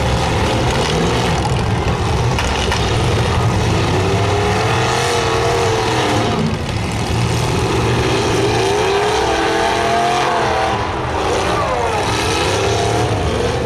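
Demolition derby cars' engines revving hard over a steady loud rumble, their pitch climbing and falling again and again.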